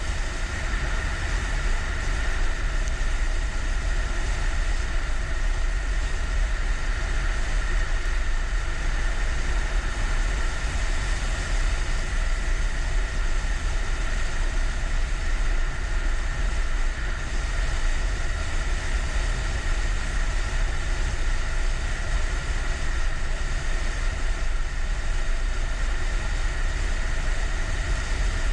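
Motorcycle under way: steady engine noise mixed with wind rush and buffeting on the microphone. It keeps an even pitch and level throughout, with no gear changes or revving.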